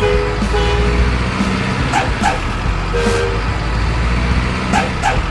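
Simulated heavy diesel truck sound for RC model trucks: a steady low engine rumble, broken by short two-note horn toots near the start and about three seconds in. Brief sharp hisses come twice about two seconds in and twice again near the end.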